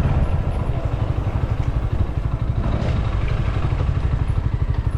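Rusi Classic motorcycle engine running at low speed, a steady low-pitched putter with a quick even pulse.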